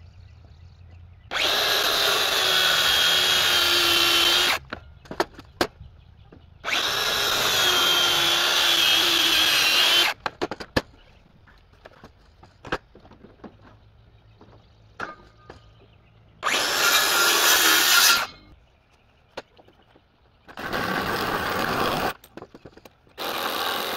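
Cordless circular saw cutting repeated kerfs into a pressure-treated 4x4 post to notch it: three runs of a few seconds each with the motor's whine. Near the end come two shorter, duller bursts from a second cordless tool working the notch, with small knocks and clicks between the cuts.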